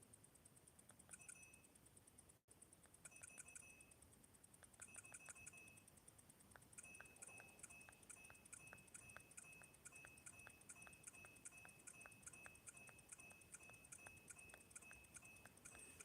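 Faint, short, high electronic beeps with clicks from a mobile phone. They come in irregular groups at first, then settle into an even pattern of about two a second from roughly seven seconds in.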